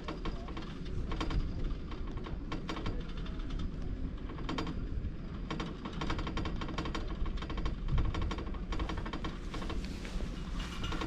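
Poma double chairlift machinery clattering: runs of rapid clicks come in several bursts over a steady low rumble.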